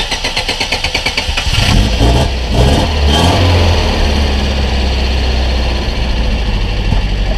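Alfa Romeo GT1600 Junior's twin-cam four-cylinder engine cranking on the starter with quick, even pulses, catching after about a second and a half. It revs briefly, then settles into a steady idle.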